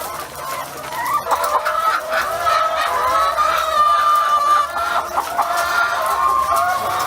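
Several domestic hens clucking and calling over one another in a continuous chorus, with one longer drawn-out call about four seconds in.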